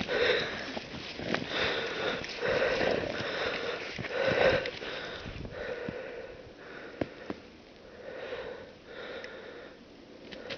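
A dog sniffing and snuffling, a run of short breathy puffs through its nose, louder in the first half and fainter later, with a couple of small clicks about two thirds of the way in.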